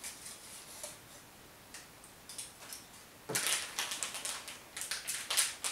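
Plastic candy wrapper crinkling: a few faint ticks, then a quick run of crackles starting about three seconds in.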